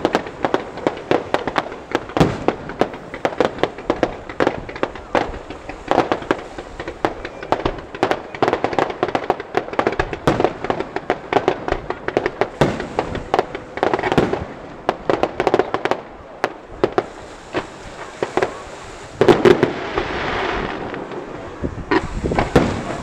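Aerial fireworks going off in quick irregular volleys of bangs and crackles from shell bursts and multi-shot effects. About three-quarters of the way through comes a few seconds of steadier hiss.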